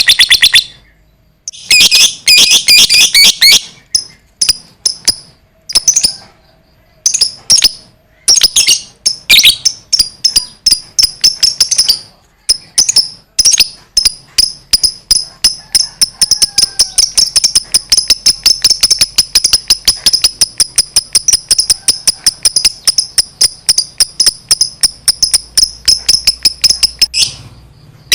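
Lovebird chattering in a rapid, high-pitched trill, the long 'ngekek' call. It comes in several shorter runs with brief gaps at first, then one long unbroken run of about thirteen seconds that stops shortly before the end.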